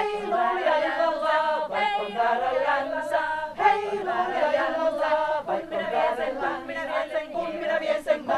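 Small women's folk choir singing a Finnish folk song a cappella, with no instruments.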